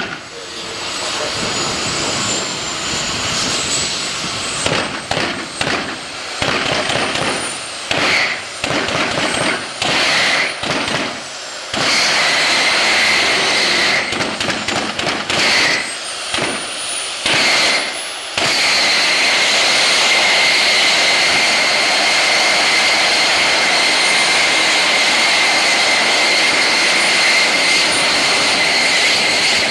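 Homemade turbojet engines on jet karts running: a loud jet roar with a high whine that glides up and down in the first half, then settles into a steady high whine. The sound drops out briefly several times in the first half.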